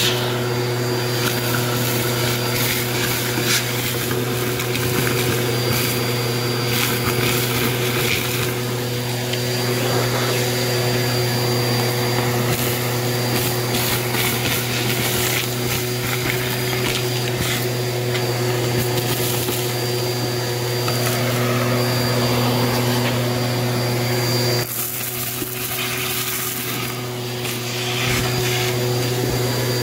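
Bissell vacuum running steadily with a crevice tool, sucking gritty debris off cardboard, with scattered crackles and rattles of bits going up the hose. About twenty-five seconds in, the motor note drops and quietens for a few seconds, then comes back up near the end.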